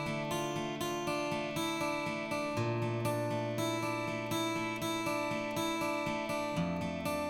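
Background music: acoustic guitar strumming a steady rhythm, changing chord a couple of times.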